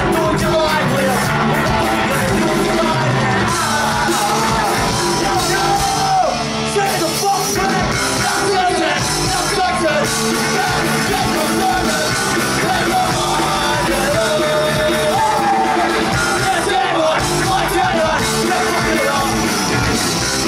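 Punk rock band playing live: electric guitar and drums under a shouted lead vocal, loud and steady.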